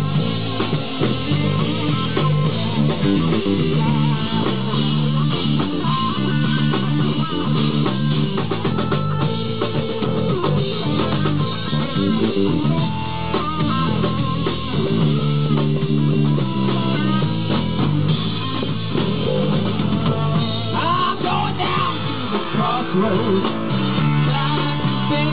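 Live rock band playing without a break: a purpleheart DP electric bass, an electric guitar and a drum kit together.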